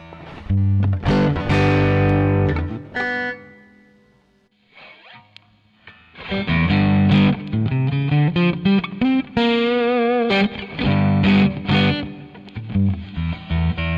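Electric guitar played through a Zoom G1 Four multi-effects processor with a crunch (lightly overdriven) tone and a Marshall 4x12 cabinet simulation with its mic setting on. A chord is struck and left to ring and fade, then a lead line begins about six seconds in, with a held note shaken with vibrato around ten seconds in.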